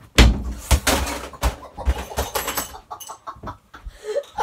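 A sudden heavy thump, then a quick run of knocks and scuffling as boys move about in a small room, with excited vocal noises near the end.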